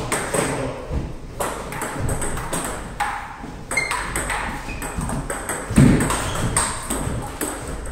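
Table tennis rally: the celluloid ball clicks in quick succession off rubber bats and the table top. About six seconds in comes a heavier low thump.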